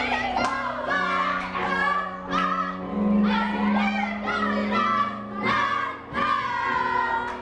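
Music: a group of voices singing together over a steady instrumental accompaniment, with held low notes under the melody.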